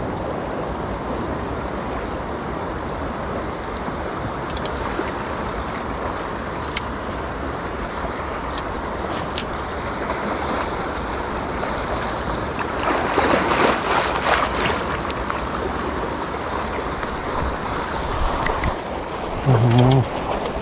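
Small waves washing and breaking around shallow rocks, with wind on the microphone; the wash swells louder for a couple of seconds about two-thirds through. A brief voice sounds near the end.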